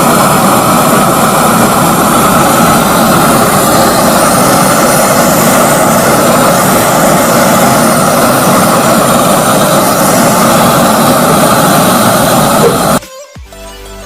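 Gas welding torch flame burning with a loud, steady roaring hiss while heating a seized nut to free it. It cuts off abruptly near the end.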